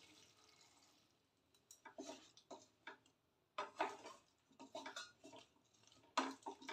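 Wooden spatula tapping and scraping against a metal kadhai while cooked raw papaya pieces are stirred. It is a quiet series of short clicks and knocks, starting about two seconds in, the loudest a little after six seconds in.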